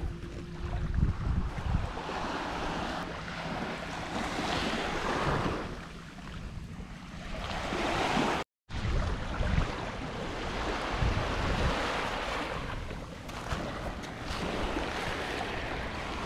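Sea waves washing onto the beach, swelling and falling back every few seconds, with wind rumbling on the microphone. The sound cuts out completely for a moment a little past halfway.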